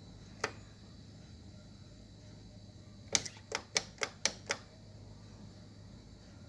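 Buttons on a Samsung refrigerator's control panel clicking as they are pressed: one click, then a quick run of about six clicks a little past the middle.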